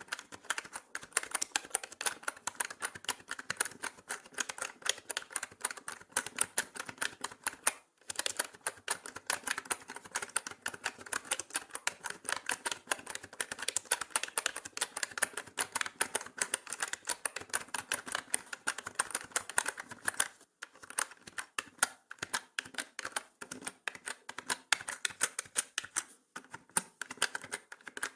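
Mechanical keyboard being typed on continuously, a fast stream of sharp key clicks and clacks, with brief pauses about 8 seconds in, around 20 seconds and near 26 seconds.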